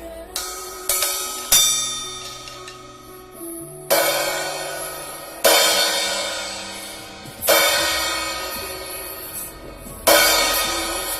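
Nebulae 14-inch crash cymbal, Indonesian-made, struck seven times: three quick hits in the first second and a half, then single crashes every two to three seconds, each left to ring and fade out slowly.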